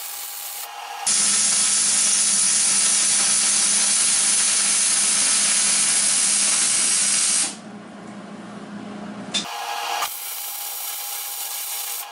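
Welding on a steel square-tubing frame: a loud, steady hiss with a low hum that runs for about six seconds and cuts off suddenly. Quieter steady shop noise comes before and after it in short cut segments.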